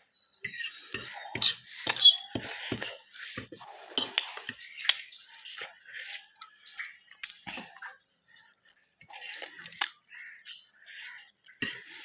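Cutlery clinking and scraping against dishes while eating: a run of irregular small clinks, busiest in the first few seconds, pausing briefly about eight seconds in.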